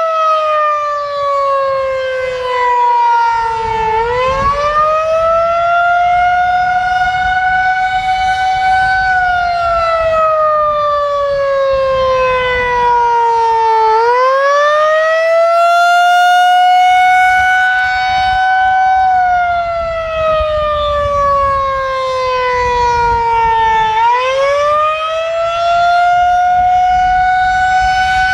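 Federal Signal 2001-SRNB rotating electromechanical siren sounding the Attack signal. Its pitch rises and falls in a slow, repeating wail about every ten seconds: a quick climb, then a long slide down.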